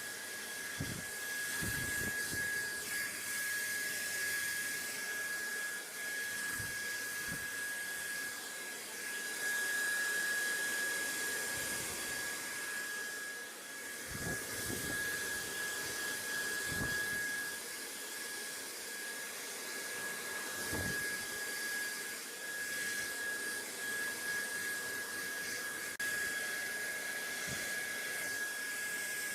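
Steady hissing white noise with a thin, steady high whine running through it, and scattered soft low thumps.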